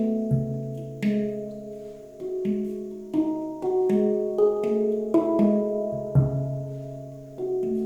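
Handpan played by hand in a slow, meditative melody: single struck notes, about one every half second to second, each ringing on and overlapping the next, with a deep low note struck twice, just after the start and about six seconds in.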